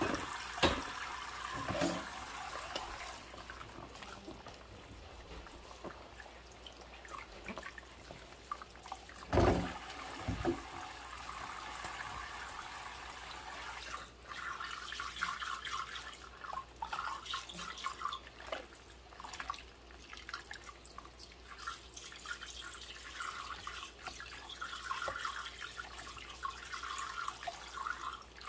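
Dishwashing by hand in a sink of soapy water with rubber gloves: water sloshing and dripping as ceramic mugs are lifted, turned and rubbed clean. A few light clicks come near the start, and one loud knock about nine seconds in. In the second half there is steady scratchy rubbing.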